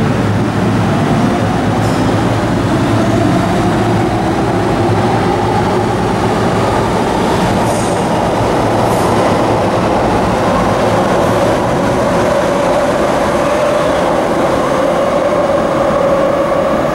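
MTR Kwun Tong Line electric train pulling out of the station and gathering speed. It runs with a steady rumble of wheels on track and a motor whine that rises slowly in pitch as it accelerates.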